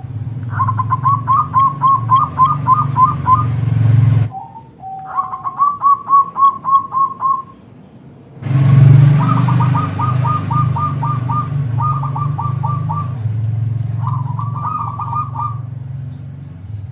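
Zebra dove (perkutut) singing: about four phrases of quick, evenly spaced cooing notes, with the sound cutting off abruptly twice between phrases. A steady low drone runs underneath.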